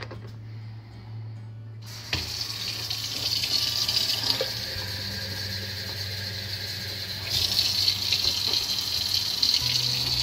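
Kitchen faucet running, its stream of water splashing into a container in a stainless steel sink. The water starts about two seconds in and gets louder about seven seconds in.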